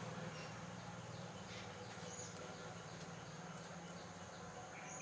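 Faint, scattered short bird chirps over a low steady hum that fades away.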